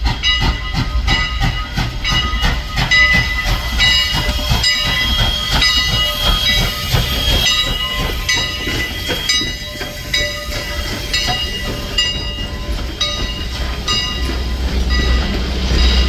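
Steam locomotive 89's bell ringing over and over as it comes in, each strike ringing on, with steam hiss and the engine's low rumble underneath.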